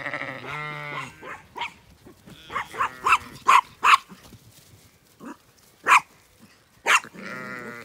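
Zwartbles sheep bleating as the flock bunches at a gate: a long wavering bleat at the start and another near the end. Several short, sharp calls come in between.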